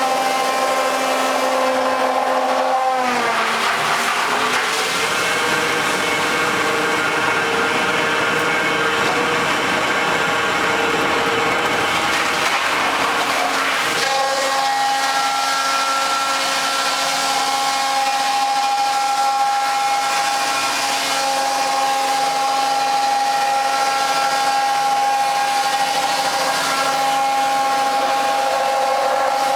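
Wood sawdust making machine (log crusher) running with a steady hum. About three seconds in its pitch drops and a dense grinding noise takes over for some ten seconds, the sign of wood being crushed under load. Near the middle the grinding fades and the hum settles back, steady, as the machine runs free.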